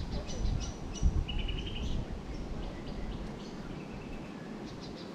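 Wild birds calling: quick high chirps and two short trills, over a low rumble.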